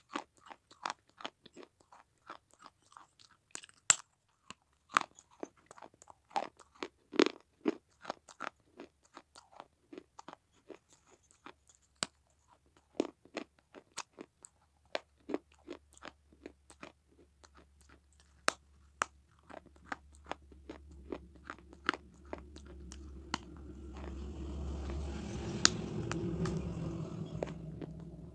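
Fired terracotta clay saucer being bitten and chewed close to the microphone: a run of sharp, irregular crunches, several a second at first and sparser later. A low droning noise builds through the second half and eases near the end.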